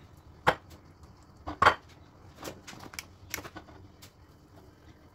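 Utensils knocking against a plate or dish: a handful of short, sharp clicks and knocks, the two loudest about half a second and a second and a half in.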